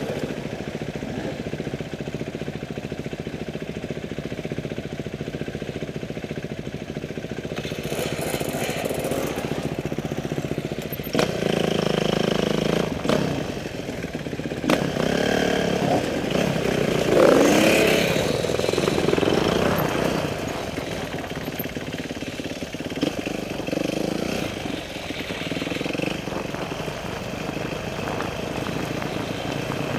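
Motorcycle engine running under way, steady for the first several seconds, then revving up and down with repeated changes in pitch between about eleven and twenty seconds in.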